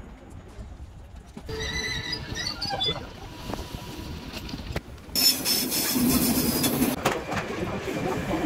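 Train squealing in a station with the general noise of a busy platform. There is a first spell of high squealing about one and a half to three seconds in, and a louder one about five to seven seconds in.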